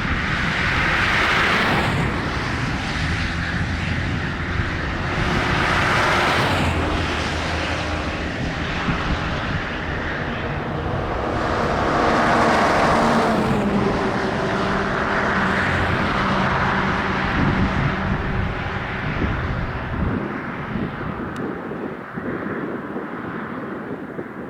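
Diesel freight train passing at track side: locomotive engines drone with steady low tones, mixed with the rolling noise of wheels on rail that swells every few seconds. The engine tones drop out about twenty seconds in and the sound begins to fade.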